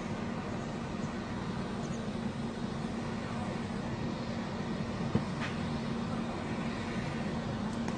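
Steady outdoor background noise with a constant low hum, and a single sharp click about five seconds in.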